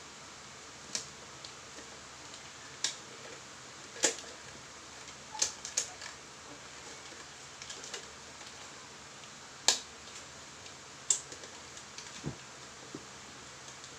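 Sharp, irregular clicks and snaps of a rubber band being stretched and let go around a paper cover on a container, with light paper crinkling, about eight in all.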